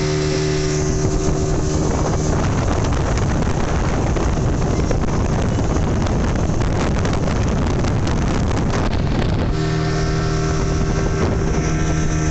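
Diesel speedboat engine running with a steady hum, heard on board. For most of the middle, rushing wind on the microphone and water noise cover the engine tone, which comes through clearly again near the end.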